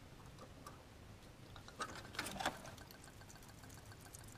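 A short clatter of sharp clicks about two seconds in, as the fuel line's quick-connect fitting is worked off the fuel filter with a disconnect tool. It is followed by a faint, fast, even ticking.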